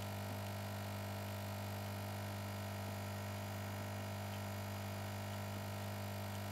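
Steady low electrical hum with a faint hiss behind it, unchanging and with no distinct clicks or knocks.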